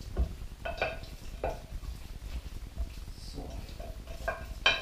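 Hands kneading raw chicken legs coated in oil and spices in a glass bowl: soft, intermittent wet handling sounds.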